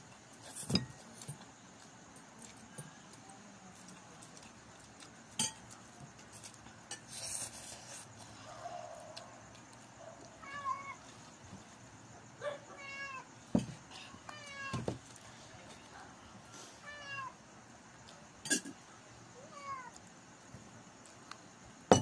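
A cat meowing repeatedly, about seven short rising-and-falling meows in the second half, among sharp clicks and clatter from eating at the table.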